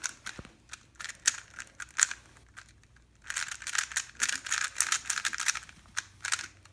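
Plastic Rubik's cube being turned fast during a speedsolve, its layers clicking and clattering. The turns come sparsely at first, then in a dense rapid run from about three seconds in.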